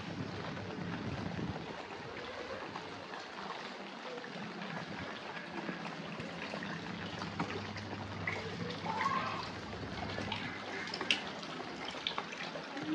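Rain-soaked village ambience: water trickling and dripping steadily, with scattered small ticks and a few brief faint calls in the second half.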